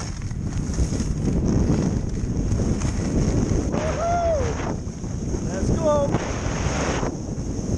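Wind buffeting a skier's GoPro action-camera microphone, a steady rumble throughout. Two short voice sounds break in, about halfway through and again a couple of seconds later.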